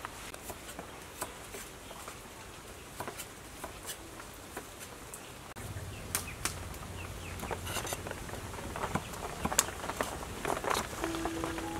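A knife cutting wood ear mushrooms on a wooden chopping board: irregular sharp knocks of the blade on the board through the second half, over a low hum, with only a few faint clicks before it.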